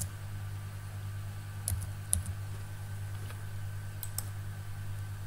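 A few separate keystrokes on a computer keyboard as digits are typed into a spreadsheet cell: short sharp clicks about two seconds in and again near four seconds, over a steady low hum.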